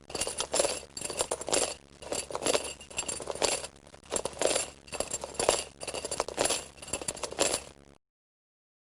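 Horror sound effect of rhythmic clinking and jangling, about one stroke a second, that stops suddenly near the end.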